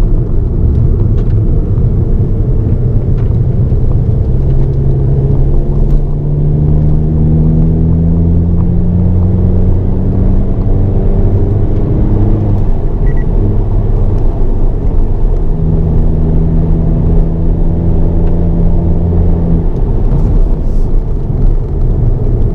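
Hyundai Avante N (Elantra N) 2.0-litre turbo four-cylinder heard from inside the cabin on track, pulling hard with its pitch climbing steadily, dropping at a gear change about twelve seconds in, then climbing again before easing off near the end. A loud, constant rumble of road and engine noise runs under it.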